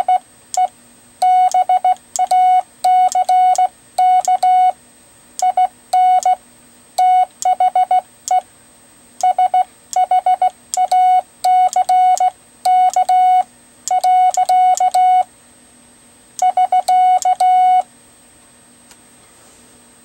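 Morse code sent on a semiautomatic bug key, heard as a steady mid-pitched sidetone keyed in dots and dashes. It has rapid, even runs of dots from the bug's vibrating arm, longer hand-made dashes, and sharp clicks on the keyed elements. The sending stops near the end.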